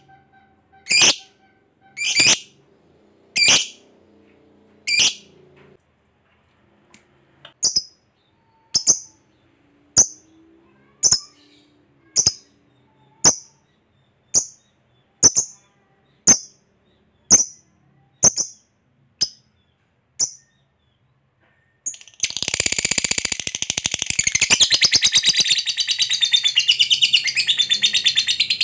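A lovebird calling in single sharp, high chirps about once a second. About 22 seconds in it breaks into a long, rapid chattering trill, the 'ngekek' that lovebird keepers prize.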